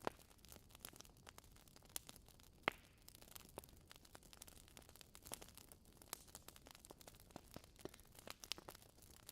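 Wood fire crackling in a fireplace: faint, irregular pops and snaps over a soft hiss, with a couple of louder snaps, the sharpest a little under 3 seconds in.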